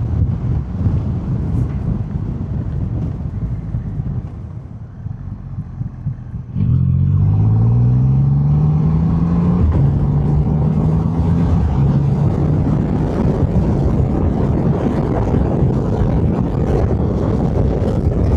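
Triumph Rocket 3 R Storm's 2.5-litre inline-triple engine on its stock exhaust. It runs quietly at first, then about six and a half seconds in opens up suddenly and accelerates hard, its pitch climbing through two gear changes. It settles into a steady drone with wind rushing at road speed.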